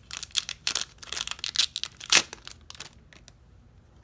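Foil trading-card booster pack wrapper crinkling and tearing as it is opened by hand. The crackle is loudest just after two seconds in and stops about three seconds in.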